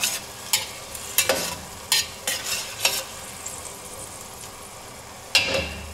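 A utensil scraping and stirring the bottom of a stainless steel pot while red wine sizzles over browned beef and onions: deglazing, lifting the browned bits off the bottom. Several scrapes come in the first three seconds and a louder one comes near the end, over a steady sizzle.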